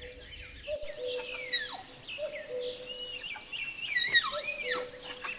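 Several small birds chirping: quick falling and arching whistled notes, overlapping throughout. A low steady whistled note recurs every second and a half or so.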